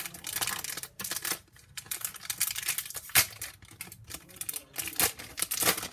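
AFL TeamCoach trading cards being handled and flicked through from a freshly opened pack: a quick, uneven run of light clicks, flicks and rustles of card stock, with a sharper snap about three seconds in.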